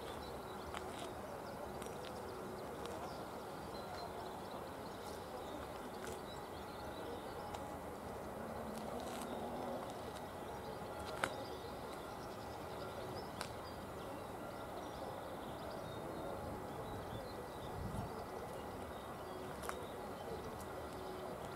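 Electronic level-crossing bell ringing steadily while the crossing is closed, with faint bird chirps and a few sharp clicks.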